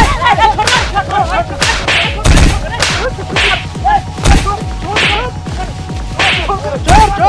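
Fight sound effects: a rapid series of whooshing swishes and whip-like cracks with thuds, roughly one or two a second.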